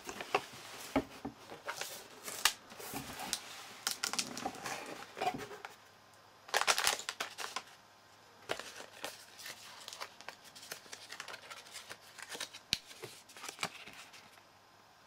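Packaging being handled: cardboard box flaps opened and plastic bags and paper notes rustled and crinkled, with light knocks and clicks and a louder rustle about seven seconds in.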